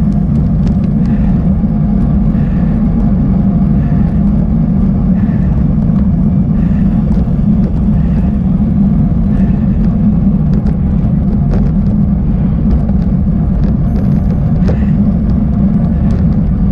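Steady low rumble of a mountain bike riding a rough, broken dirt track: wind on the microphone mixed with tyre and frame vibration, with scattered small clicks and rattles.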